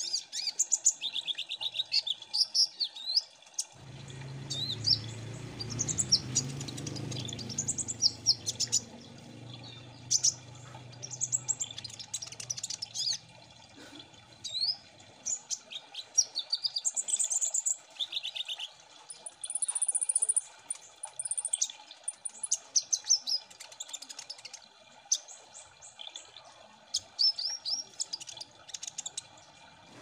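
Kolibri ninja (Van Hasselt's sunbirds) chirping and trilling in a busy chorus of rapid, high-pitched notes. A low rumble sits under the calls for the first half.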